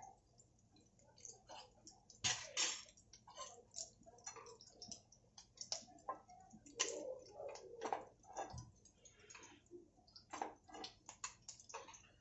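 Hot oil crackling and popping in a nonstick frying pan around boiled egg halves, with clicks of a steel spatula against the pan as the eggs are lifted out. The clicks come at an uneven pace, the sharpest pair about two seconds in.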